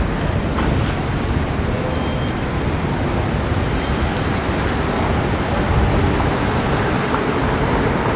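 Steady traffic noise of cars and buses on a busy city street, a continuous low rumble of engines and tyres.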